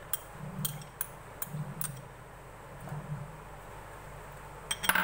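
Metal spoon tapping and scraping against a glass bowl as grated carrot is knocked out into a dish: a few light clinks over soft scraping in the first couple of seconds, then a quieter stretch and a louder clatter of dishes near the end.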